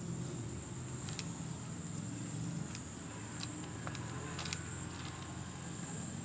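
Kitten chewing a chicken neck in a plastic food bowl: scattered sharp crunching clicks, several close together about four seconds in, over a steady low hum and a thin high whine.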